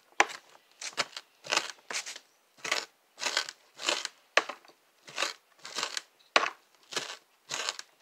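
Kitchen knife mincing an onion on a cutting board: a repeated crunching chop about twice a second, each stroke cutting through the onion and tapping the board.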